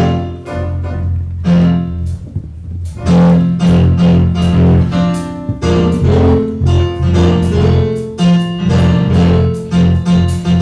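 Gospel band playing the instrumental introduction to a song: a prominent bass line with keyboard and regular drum strokes, before the choir comes in.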